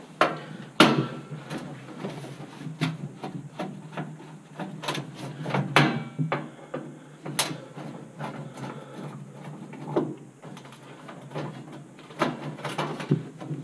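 Phillips screwdriver working screws out of a gas oven's sheet-metal floor panel: scattered clicks and clinks of metal, with a few sharper knocks, irregularly spaced.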